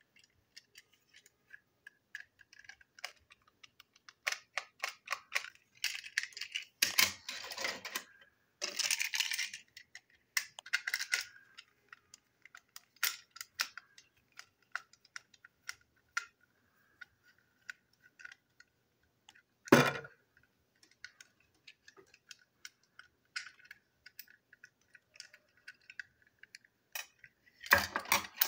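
Small clicks and scrapes of a screwdriver working on a plastic toy train wagon and its parts being handled. There are brief rubbing scrapes in the first third, one sharp knock about two-thirds of the way through, and a clatter of parts near the end.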